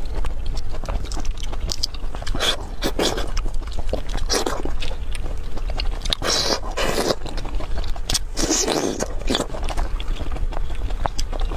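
Close-miked eating sounds of fresh lychees: fingers crackling and scraping the shells as they are peeled, and wet mouth sounds as the fruit is bitten and sucked, in irregular short bursts with a couple of longer slurps.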